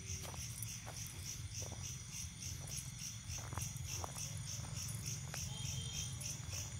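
Insects chirping in a steady, evenly pulsing high-pitched chorus, with a low rumble underneath and a few light clicks.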